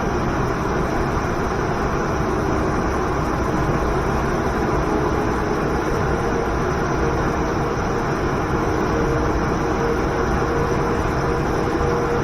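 Waterfall and river water rushing, a steady, unbroken roar.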